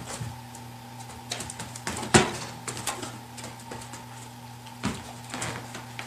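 Scattered knocks and clicks, the loudest about two seconds in and another near five seconds, over a steady low electrical hum.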